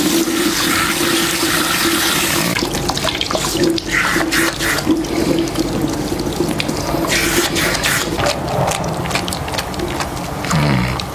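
Running water at a wash basin, a steady rush at first that turns into uneven splashing after a couple of seconds.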